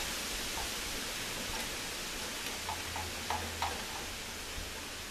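Steady background hiss with a few light clicks and taps about three seconds in, from fittings being handled and positioned against an AC evaporator unit by hand.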